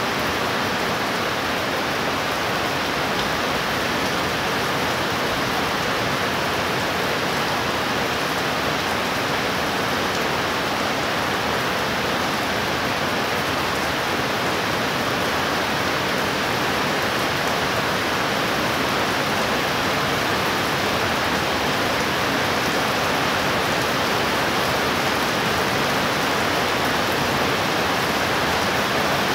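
Heavy tropical-style downpour: dense, steady rain hissing evenly on surfaces, growing slightly louder near the end. No thunderclap is heard.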